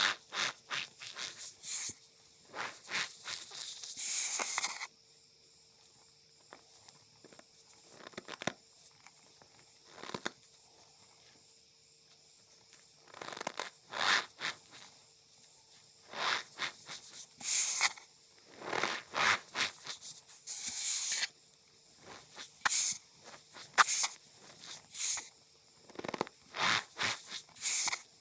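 Cornstarch powder squeezed and pressed by hand, giving squeaky, crunchy bursts at an irregular pace, mostly sparse for several seconds in the middle, then coming thick and fast.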